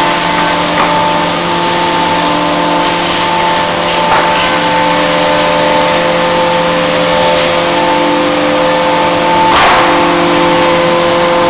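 CNC milling machine running: a steady motor whine with several tones over a hiss, with a short knock near the end.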